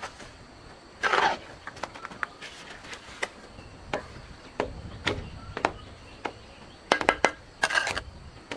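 Irregular knocks and taps, with a short scraping rustle about a second in and a quick run of knocks near the end.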